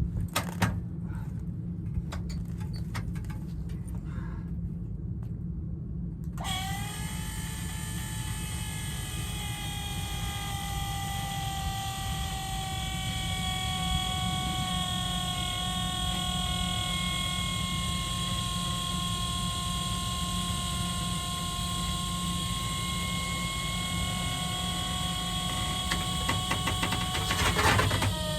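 Battery-powered electric motor on a dump trailer, run in sub-zero cold to test whether the trailer's battery still has enough charge. It starts with a sudden whine about six seconds in and runs for about twenty seconds, its pitch sagging slowly as it works, over a steady low engine rumble.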